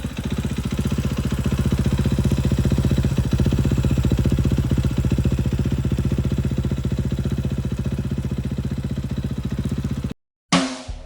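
2014 KTM 500 XC-W's single-cylinder four-stroke engine idling steadily. It cuts off abruptly about ten seconds in, and guitar music starts right after.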